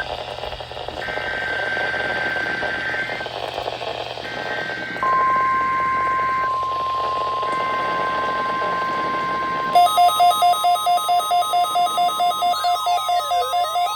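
NOAA Weather Radio test broadcast over a hiss: three SAME header data bursts, a shrill two-tone digital warble, with a steady 1050 Hz warning alarm tone coming in about five seconds in. About ten seconds in, a loud electronic alarm takes over, beeping about four times a second between two pitches with sweeping glides.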